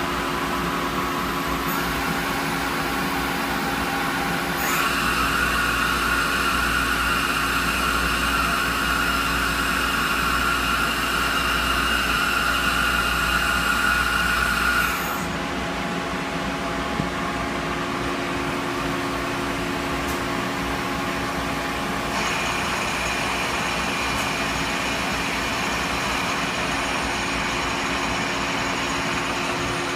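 Citizen A32 VII CNC Swiss-type lathe running under power: a steady machine hum, with a louder whine that comes in about five seconds in and cuts off abruptly about fifteen seconds in, then a higher whine from about twenty-two seconds in.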